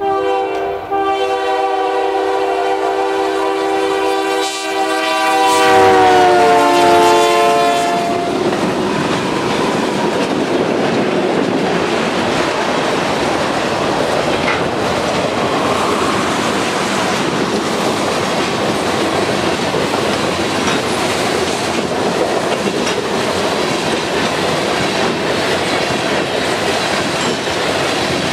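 A CN freight train's diesel locomotive sounds its air horn, a chord of several tones, as it approaches. The chord drops in pitch as the engines pass, about six seconds in, and cuts off around eight seconds. After that the freight cars roll by with steady wheel clatter over the rails.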